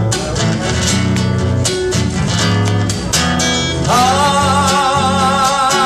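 Acoustic guitar strumming chords between sung lines of a Latin ballad. About four seconds in, a long held note with a wavering pitch comes in over the guitar.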